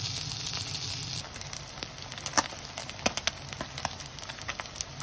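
Cutlassfish fillets sizzling in a frying pan. About a second in, this gives way to a quieter bed of oil with many separate sharp pops and crackles as battered cutlassfish fries as tempura.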